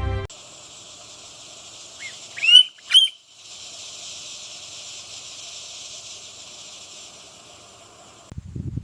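Outdoor nature ambience: a steady high insect chorus with a bird giving three short rising call notes about two to three seconds in, the last two loudest. A low rustling starts near the end.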